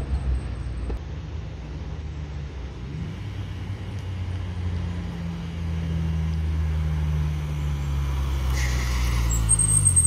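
Honda Fit's 1.5-litre inline-four running at low revs through a Spoon N1 cat-back exhaust and B-pipe as the car rolls slowly toward the listener, its deep exhaust note growing louder as it approaches. Near the end the engine note drops as the car slows to a stop close by.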